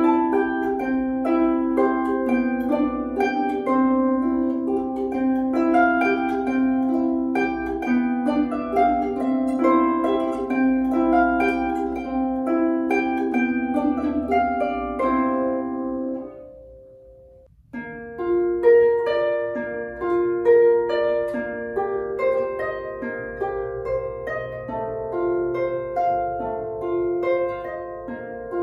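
Solo harp played by plucking, a melody of notes over a repeated low note. About sixteen seconds in the notes die away, and after a short pause a second piece begins with a loud plucked note.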